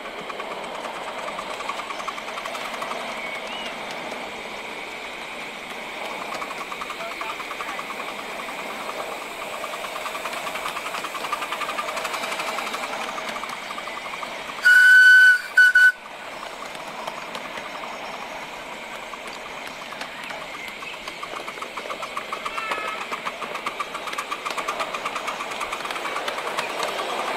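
7¼-inch gauge miniature railway locomotive running steadily along the track with its carriages, and a loud whistle sounded about halfway through: one long blast, then a short one.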